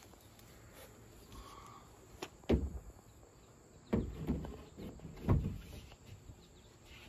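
A large plywood sheet being handled and held against the side of a pickup truck: three dull thumps about a second and a half apart, with faint outdoor background.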